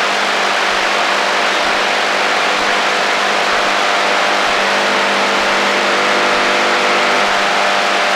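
AM radio receiver on the HF band giving out steady static hiss: interference noise, with faint steady humming tones under the hiss.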